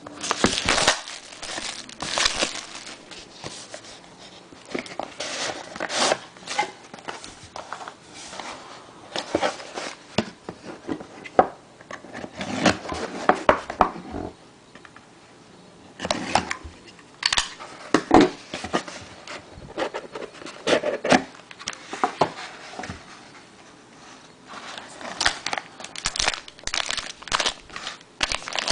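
Plastic wrapping and packaging being crinkled and torn open by hand as a sealed trading-card box is unpacked, in irregular bursts of rustling and crackling with short pauses between.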